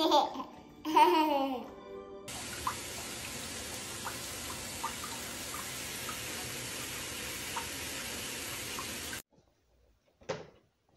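A baby laughing and babbling for the first two seconds, then water running steadily into a bathtub with a dog in it for about seven seconds, with a few faint drips, cutting off suddenly.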